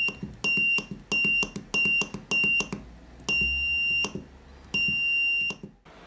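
Small piezo buzzer driven by a 555 timer latch circuit, beeping at one high pitch as a push button toggles it on and off. It gives five short beeps about half a second apart, then two longer beeps of under a second each, with small clicks as they switch.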